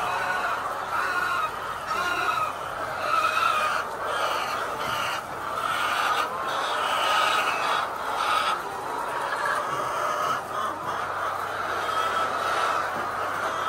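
A flock of layer chickens calling, many short calls overlapping without a break.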